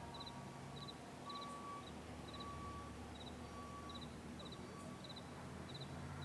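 Faint insect chirping in quick groups of three, repeating about twice a second, over a low steady hum.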